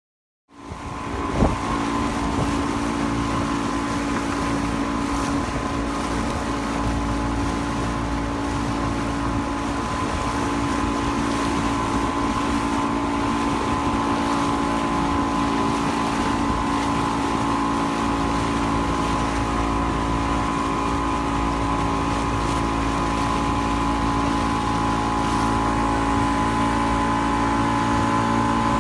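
Motorboat engine running steadily, with one sharp knock about a second in.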